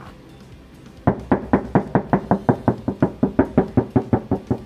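Rapid, even knocking on a 2021 Suzuki Ertiga car door that has no sound-deadening mat fitted, about four knocks a second and starting about a second in. Each knock rings briefly in the bare sheet metal.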